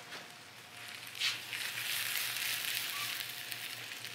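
Okonomiyaki (cabbage pancake) sizzling in a hot oiled skillet, its freshly flipped underside frying. The sizzle swells with a brief louder burst about a second in, then goes on steadily.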